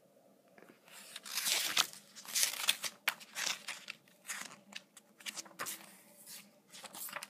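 Pages of a thick hardcover book being turned by hand: a run of paper rustles and flaps, loudest from about one to four seconds in, then lighter rustles and a few short flicks.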